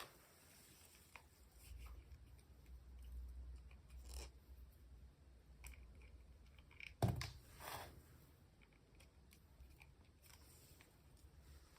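Faint handling of small packaging and plastic pieces: scattered light clicks and rustles, with a louder knock about seven seconds in.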